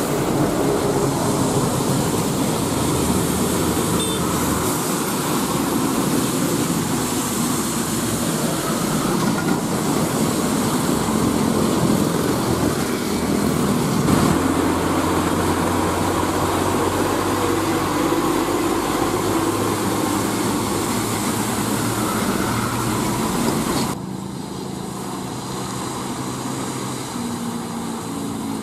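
Heavy diesel trucks driving past on a wet road: engines running under load and tyres hissing through water, among them a UD Quester GWE 370 tractor unit hauling steel. About 24 seconds in the sound cuts to a quieter, steadier diesel engine note from the same truck.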